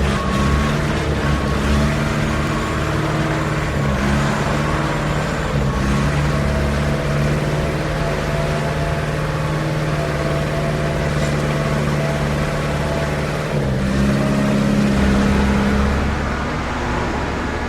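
Concrete mixer truck running, its diesel engine and the turning drum giving a steady mechanical drone. Near the end the engine note shifts and briefly grows louder.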